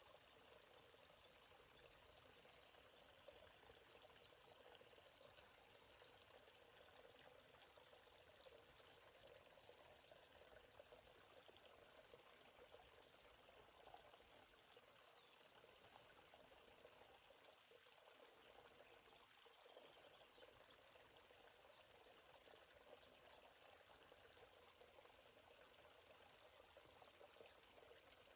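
Steady high-pitched insect chorus, a continuous trill over a faint, even murmur of a flowing stream.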